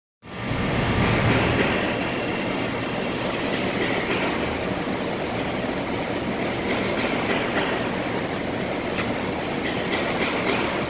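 Shoda twin-table CNC router running: a steady, dense machine noise, with a faint whine that shifts in pitch now and then.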